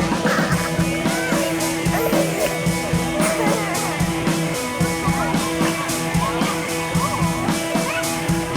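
Background rock music with guitar, a steady beat and singing.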